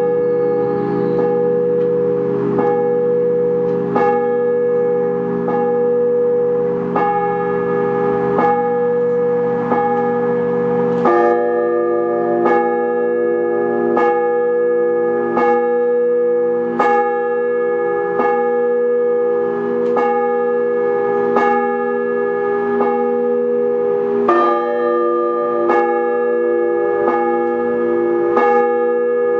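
Russian Orthodox church bells rung by a bell ringer in an improvised peal: strokes fall evenly about every one and a half seconds over several bells whose tones ring on and overlap. About eleven seconds in the deep low bell drops away and a higher set of bells takes over the pattern.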